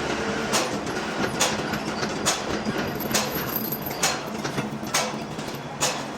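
Large lathe running with a steady hum, with a sharp click or knock repeating evenly a little more often than once a second.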